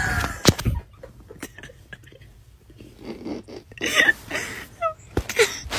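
A puppy squirming on its back in someone's hands on a fluffy blanket: scattered clicks, soft rustling and mouthing noises, and a brief run of small high squeaks about five seconds in.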